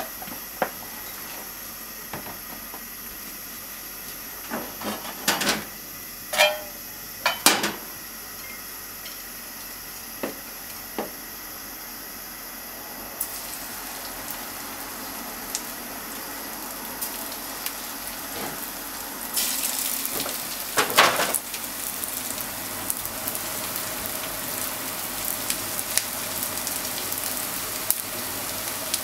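Cooking oil heating in a frying pan, with a few sharp knocks and clinks of utensils in the first third. Then coated chicken pieces are laid into the hot oil and start to sizzle and crackle, the sizzle growing louder and fuller from about two-thirds of the way through as more pieces go in.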